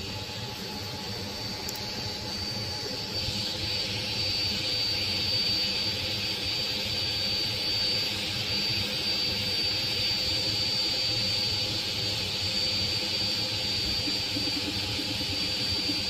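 3D printer running while printing a part: steady fan hiss with a thin constant high whine, the hiss growing stronger about three seconds in.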